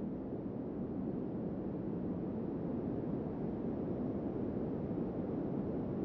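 Steady wind, a low, even rush with no gusts or whistles.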